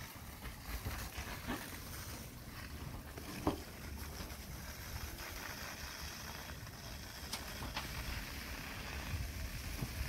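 A steady low rumble with no clear tone, with one faint click about three and a half seconds in.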